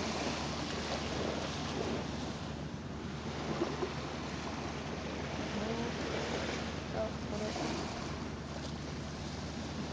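Wind on the microphone over small waves lapping on a sandy shore, a steady rushing noise.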